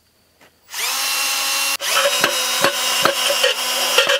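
Cordless drill driving a mounting screw through the back of an electrical box into a wooden post. The motor spins up about 0.7 s in, stops for a moment near 1.8 s, then runs again with a regular clicking.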